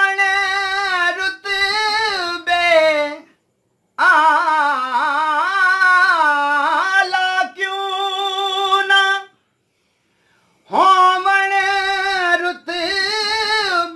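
A man singing a devotional qaseeda solo and unaccompanied, in a high voice with long held, ornamented notes. Three sung phrases with short pauses between them, about three and a half and ten seconds in.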